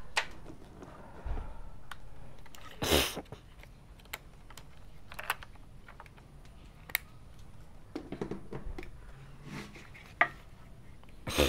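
Scattered small plastic clicks and knocks from hands handling a film camera body and its CR2 batteries, as a battery is taken out of one camera for another. There is a louder scrape about three seconds in and a sharp knock near the end.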